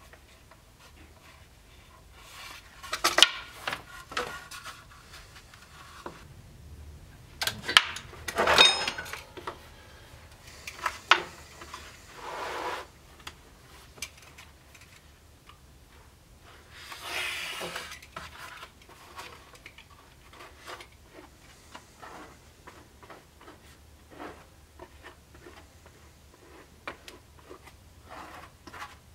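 Workbench handling sounds: scattered clicks, knocks and clatters of hand tools and pieces being picked up and set down, louder in the first part. There are short stretches of scraping and rubbing, the longest a little past the middle, and then only light ticks and taps.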